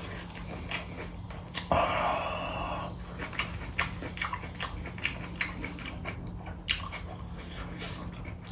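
Close-miked chewing of a mouthful of rice and curry: a string of short wet mouth clicks and lip smacks. About two seconds in comes one louder, drawn-out mouth sound lasting about a second.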